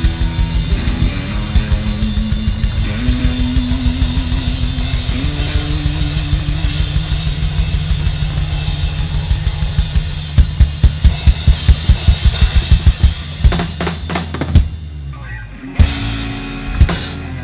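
Rock band playing live, drums and bass driving to the close of a song: a run of hard accented hits about four a second starting about ten seconds in, then a short break and final stop hits as the song ends.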